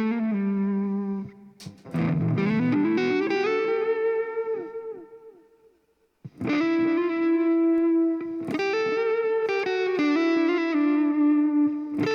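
Thomson TL-1 Telecaster-style electric guitar with humbucker pickups, played through an overdrive tone. Phrases of held notes ring out, one note slides up in pitch about two seconds in, and a brief pause comes shortly before the playing resumes.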